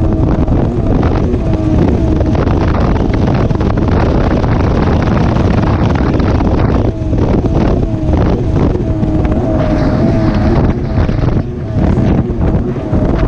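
Polaris personal watercraft running at speed over choppy water: a steady engine drone whose pitch wavers as the craft rides the chop, under heavy wind buffeting on the microphone. The sound dips briefly twice, about seven and eleven seconds in.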